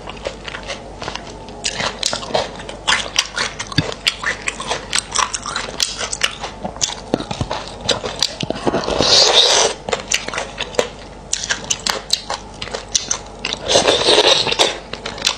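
Close-miked mouth sounds of eating beef bone marrow: quick, wet chewing clicks and smacks throughout, with two longer, louder slurps about nine and fourteen seconds in.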